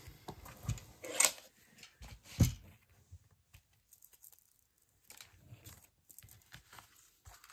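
Paper and card stock being handled on a craft table: a few short rustles and a tap in the first two and a half seconds, then faint small handling sounds.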